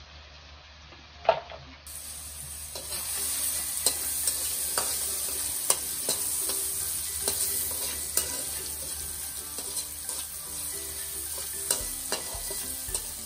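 Onions, garlic and chilies with turmeric sizzling as they fry in oil in a metal wok, while a metal spatula stirs and scrapes, tapping against the pan at irregular moments. A single sharp metallic clank about a second in is the loudest sound.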